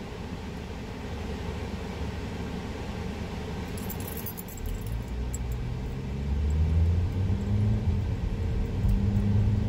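Car interior sound while driving: steady engine and road rumble, with a few light clicks about four seconds in. The engine note then grows louder and rises in pitch as the car picks up speed.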